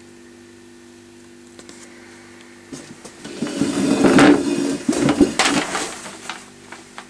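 A sheet of writing paper rustling and crackling as it is handled, starting about a third of the way in and lasting about four seconds, with a few light knocks. A steady faint electrical hum runs underneath.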